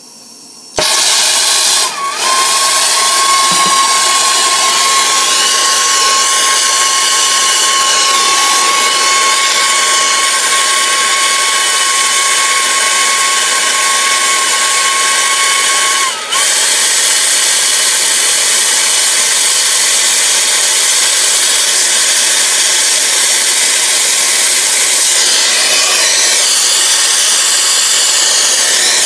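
Brazing torch flame hissing steadily while silver soldering a copper elbow onto an air-conditioning suction line. The flame comes on suddenly just under a second in and dips briefly twice. A thin steady whistle sits over it for roughly the first half.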